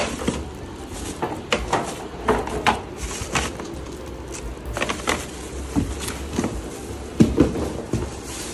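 Irregular knocks, clicks and clatter of storage-box parts being pushed and fitted together during assembly, with a few heavier thuds about seven seconds in.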